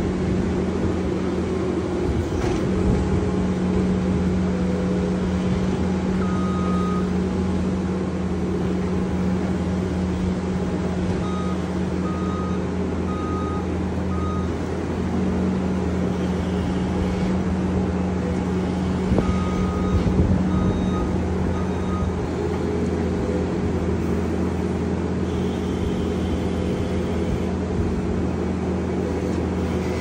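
Case SV340 skid steer's diesel engine running steadily under load while it works a grapple through manure. Its back-up alarm beeps in three short runs, about one beep a second.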